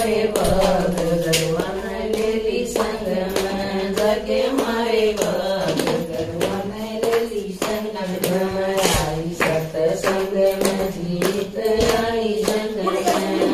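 A group of women singing a Haryanvi bhajan (devotional hymn) together in unison, clapping their hands on a steady beat.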